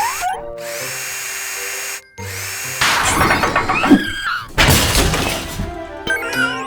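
Cartoon background music with power-tool sound effects: a steady whirr for about two seconds, then louder, busier clattering tool noises.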